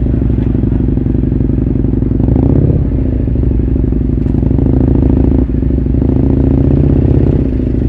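Motorcycle engine running at low speed through slow traffic, as heard from the rider's camera, with a brief rise in revs about two seconds in.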